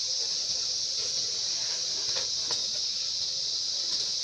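Steady high-pitched drone of insects in the forest canopy, with a couple of faint clicks about two seconds in.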